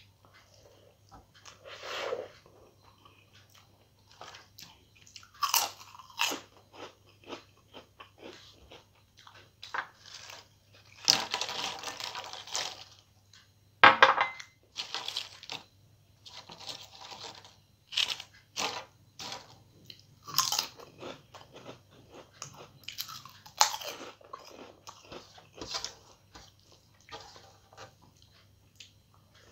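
Close-up eating sounds: crisp fried papad crunching between the teeth in irregular bouts, with softer chewing of rice and curry in between. The loudest stretch of crunching and a sharp crack come around the middle.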